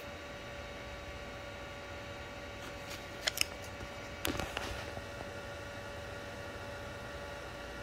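Sovol SV02 3D printer's hotend fan running with a steady hum, with a few sharp clicks from the printer about three seconds in and again a second later.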